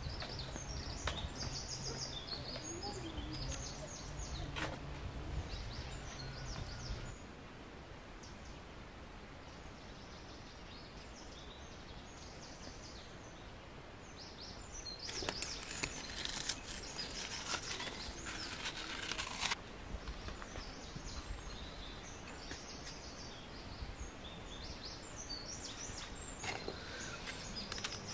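Songbirds chirping over outdoor ambience, with a low steady hum for the first seven seconds. Near the middle, about four seconds of dry crackling as biscuits are crumbled by hand into a glass bowl.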